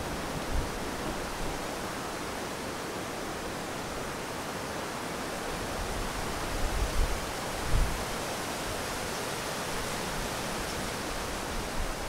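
Strong wind rushing through leafy trees: a steady rustling hiss of tossing branches and leaves. A few low thumps of gusts hitting the microphone, the biggest near the middle.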